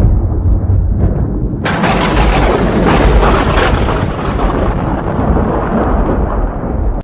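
Thunder rumbling low over rain, then a sudden loud thunderclap about a second and a half in that rolls on for several seconds.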